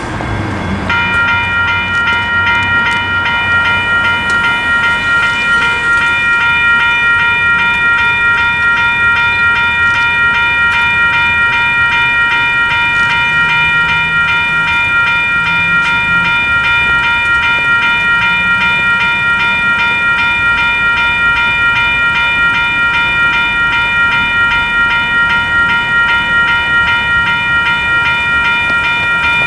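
Western Cullen Hayes Type 3 electronic crossing bell starting about a second in and ringing on steadily with a rapid repeating ding: the crossing signal has activated for an approaching train.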